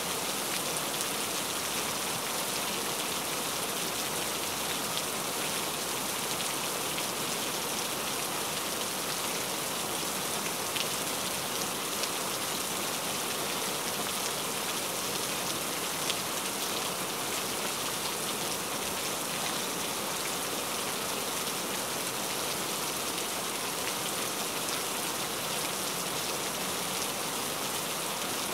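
Heavy rain falling steadily, a dense even patter with a few sharper drop hits now and then.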